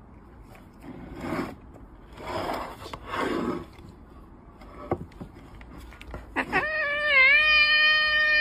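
A tabby cat gives one long, loud meow starting about six seconds in; its pitch dips once, then holds steady. Before it come three short noisy sounds a second or two apart.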